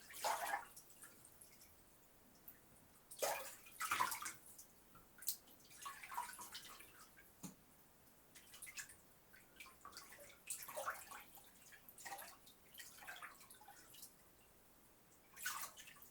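Bathwater in a tub splashing and sloshing in short irregular bursts as a bather moves, with drips between; the biggest splashes come a few seconds in and near the end.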